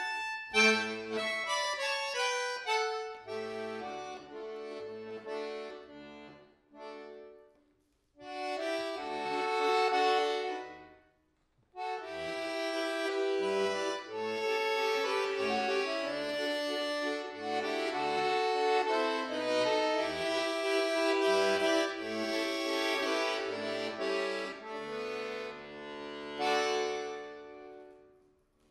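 Solo bayan (chromatic button accordion) playing a melody with chords over separate bass notes, in phrases broken by two short pauses, about eight and about twelve seconds in, then a long passage that dies away near the end.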